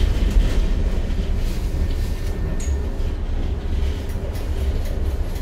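Inside a Tatra KT4D tram as it runs along the track: a steady low rumble of wheels on rails and running gear under a constant cabin noise. A brief faint high squeak comes about halfway through.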